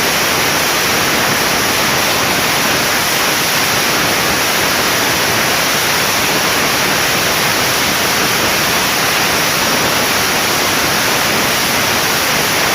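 A long string of firecrackers (about 20,000) going off in one continuous crackle, the bangs so close together that they merge into a steady, loud rush of noise.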